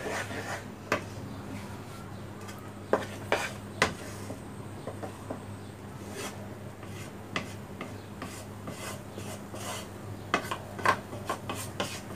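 A wooden spatula scraping and pushing a thick, dough-like milk-powder sandesh mixture around a nonstick wok, with sharp taps of the spatula against the pan every so often. The mixture has cooked down to a stiff mass that is starting to come away from the pan.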